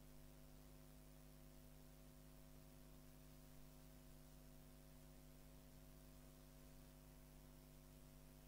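Near silence: a faint steady electrical hum with a low hiss underneath.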